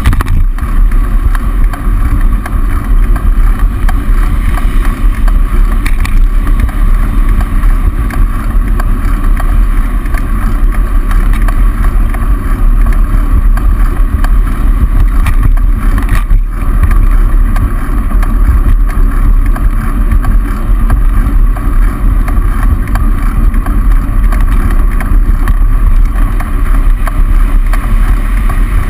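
Steady wind rumble on a bicycle-mounted camera's microphone while riding along a busy road, mixed with tyre and traffic noise.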